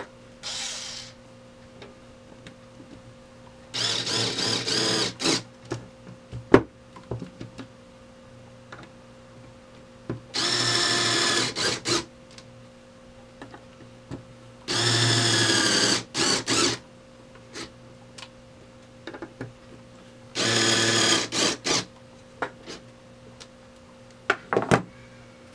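Cordless electric screwdriver driving screws into the back plate of a Beaver vending mechanism: four separate runs of about a second and a half each, a whining motor, with light metal clicks between them.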